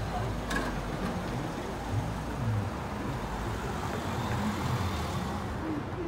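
City street traffic: the steady rumble of car engines and tyres on the road.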